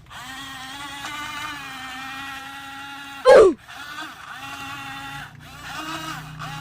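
Background music: a steady electronic tune with a low held note, broken about halfway through by a brief, loud downward-sliding sound effect.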